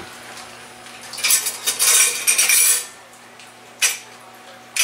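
Metal cutlery clattering for about a second and a half as a fork is fetched, followed by a single sharp clack near the end.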